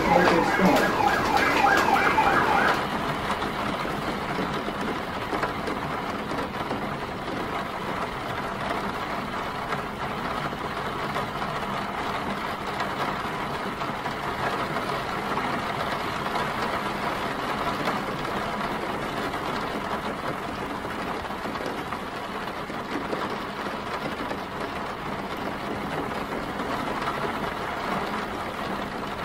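An emergency-vehicle siren in a fast yelp, its pitch rising and falling over and over for the first three seconds or so. It gives way to a steady wash of city street noise, traffic and rain.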